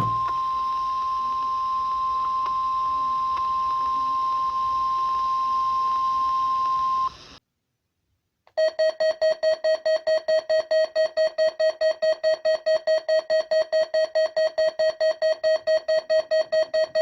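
NOAA Weather Radio warning alarm, a steady 1050 Hz tone, cutting off about seven seconds in. After a second of silence, a lower-pitched electronic alarm starts, beeping rapidly several times a second.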